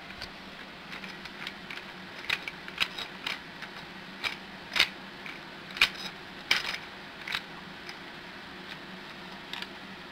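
Irregular light clicks and taps of plastic Lego bricks being handled, over a faint steady low hum.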